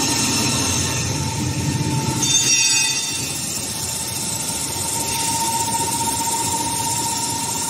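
HS1300 plastic film slitter rewinder running, slitting film with its pneumatic circular knives: a steady mechanical running noise with a steady whine. About two seconds in, a louder high-pitched whine rises over it for under a second.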